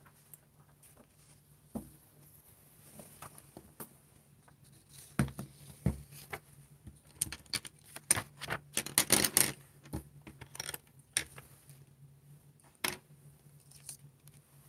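Paper and desk handling noise: a drawing sheet rustling as it is lifted and flipped, with scattered clicks and knocks of pencils and objects on the table. The densest rustling comes about eight to nine and a half seconds in, and a sharp knock comes near thirteen seconds.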